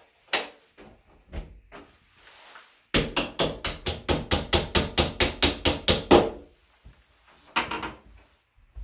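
A claw hammer tapping a bent steel hinge pin back down into a door hinge. First a few single taps, then a fast run of about five strikes a second for some three seconds, then a couple more taps near the end. The pin has been deliberately bent as the fix for a door that swings on its own.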